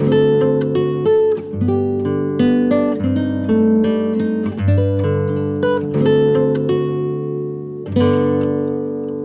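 Background music: acoustic guitar picking and strumming chords, with a last chord struck near the end that rings out and fades.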